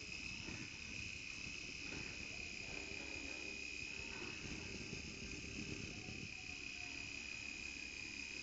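Crickets trilling faintly and steadily at a high pitch.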